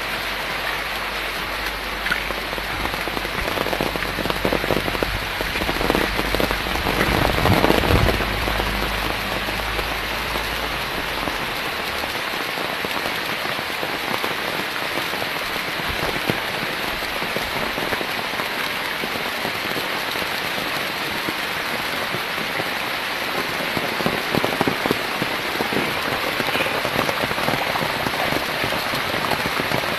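Steady rain falling, a continuous hiss of drops. For the first dozen seconds a low rumble runs underneath, swelling about eight seconds in, then drops away.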